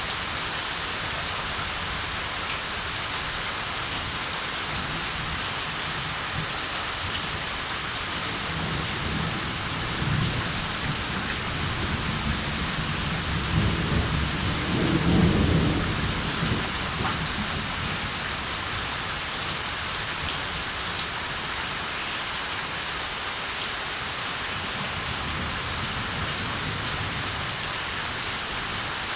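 Steady rain hissing, with a roll of distant thunder that rumbles in about a third of the way through, swells to its loudest near the middle and dies away several seconds later.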